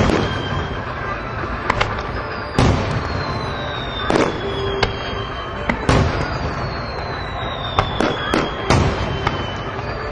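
Aerial fireworks bursting in sharp bangs every second or two, sometimes in quick pairs, over a steady noisy background. A high whistle falls slowly in pitch every few seconds.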